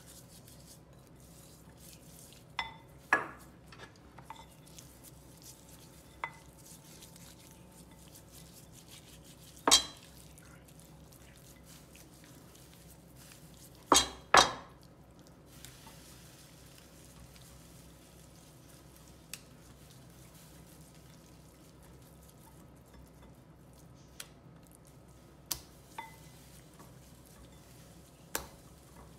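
Scattered knocks and clinks of a basting brush and a small metal cup against a ceramic bowl as marinade paste is brushed onto raw chicken fillets; the loudest knock comes about ten seconds in and a close pair about fourteen seconds in, a few of the strikes ringing briefly.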